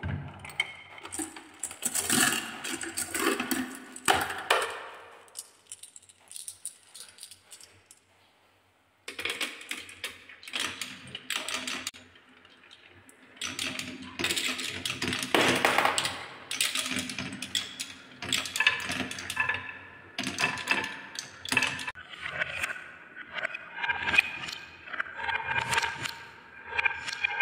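Many small balls rolling and clattering down a HABA wooden spiral slope marble run: a dense, uneven rattle of small clicks and knocks. It drops to a brief pause of near silence about eight seconds in, then resumes.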